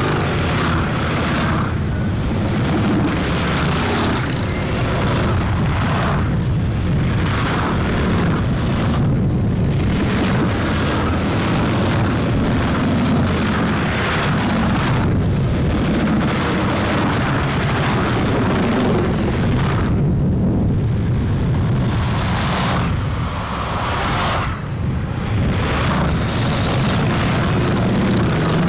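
A procession of Harley-Davidson V-twin motorcycles rumbling past, heard as a loud, continuous engine noise that swells and eases as bikes go by.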